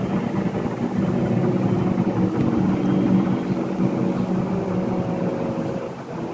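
Many voices humming together in one steady, low drone, the sound of a group pranayama humming breath; it dips briefly near the end.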